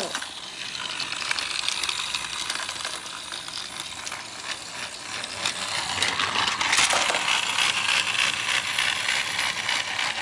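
Battery-powered TrackMaster Thomas toy engine running on plastic track, its small motor and plastic gears making a steady rattling clatter of fine clicks, louder from about six seconds in.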